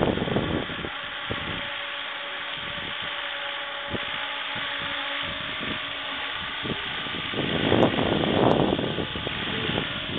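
Scale electric radio-controlled helicopter in flight, its motor and rotor giving a steady whine. Wind rumbles on the microphone at the start and again around eight seconds in.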